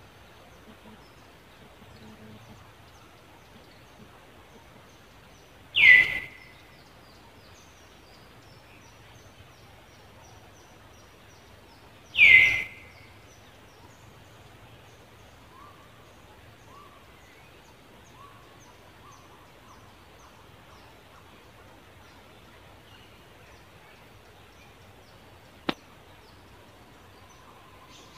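Outdoor ambience of faint bird and insect chirping, broken twice, about six seconds apart, by a loud, short, high call that falls in pitch. A single sharp click near the end.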